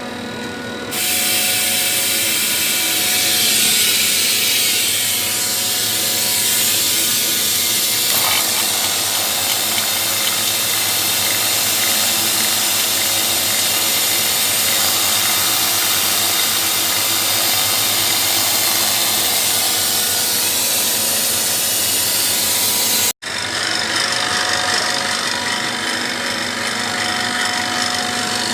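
A power tool running continuously, loud and hissy, during work on a screw chiller's discharge service valve. It breaks off for an instant near the end.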